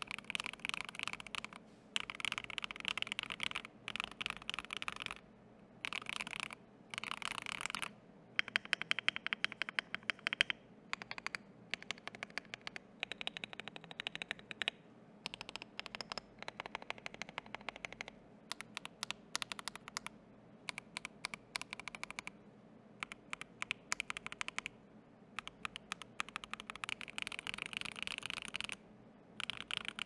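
Typing on a mechanical keyboard fitted with stock, unlubed Akko CS Silver linear switches in a brass-plated Tofu65 V3 with ASA-profile keycaps. Fast runs of key clacks in bursts of a second or two, separated by short pauses.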